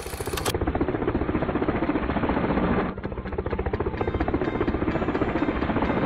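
A short hissy swoosh, then a rapid fluttering mechanical whirr, steady apart from a brief dip about halfway through.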